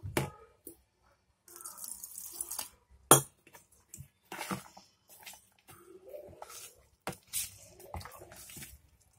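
Steel spoon stirring thin dosa batter in a plastic bowl: intermittent wet slopping and scraping, with a sharp tap of the spoon on the bowl about three seconds in.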